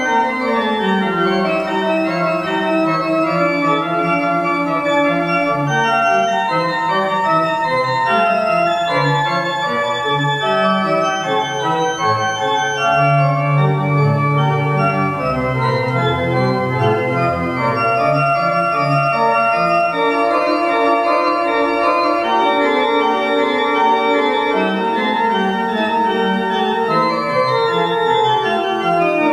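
Church pipe organ playing slow music of sustained chords, with deep low notes coming in for a few seconds in the middle.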